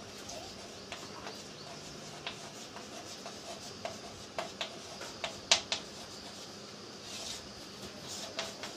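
Chalk writing on a blackboard: a scattered run of sharp taps and short scratches as the letters are written. The loudest tap comes about five and a half seconds in.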